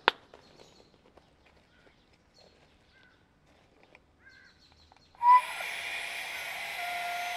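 Flextail Tiny Pump X mini electric air pump switched on at the valve of an air mattress, inflating it. It starts about five seconds in with a loud burst, then runs with a steady high whine over a hiss. Before that there is a sharp click, then soft handling sounds as the pump is fitted.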